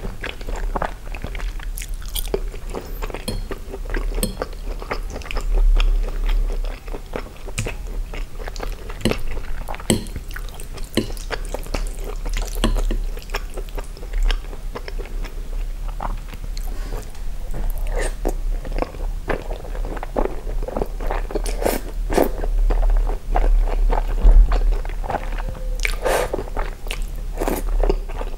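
Close-miked chewing and wet mouth sounds of eating tomato-sauced spaghetti with sausage slices and melted cheese, with a metal fork clicking against the plate as noodles are twirled and lifted, and strands of spaghetti sucked into the mouth near the end.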